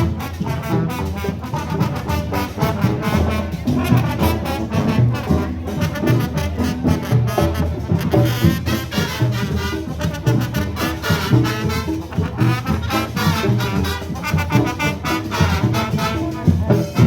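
Parade marching band playing live: brass carries a tune over a busy, steady drum beat.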